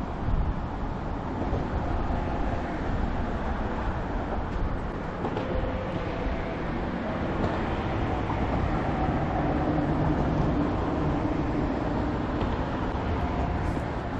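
Steady low rumble of a vehicle in motion, an even noise with no clear rhythm.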